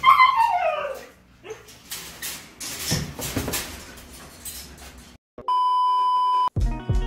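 A Siberian husky gives a short whine that slides down in pitch. Crinkly rustling and handling noises follow as a plastic bag is worked during kennel clean-up. Near the end comes a steady one-note test-pattern beep lasting about a second.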